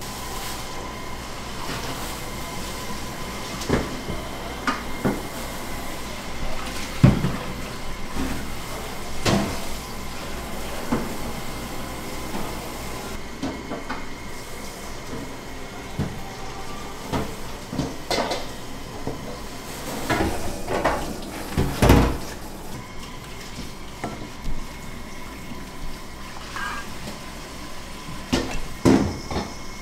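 Kitchen work: scattered knocks and clatter of bowls and utensils being handled, with a louder knock about seven seconds in and another about twenty-two seconds in, over a faint steady hum.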